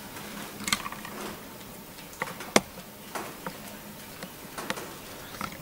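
Quiet pause in a room: a faint steady hum and hiss, with a few scattered small clicks and rustles. The sharpest click comes about two and a half seconds in.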